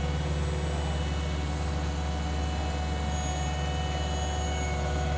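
Heavy diesel engine of paving machinery running steadily at constant speed, a deep, even drone.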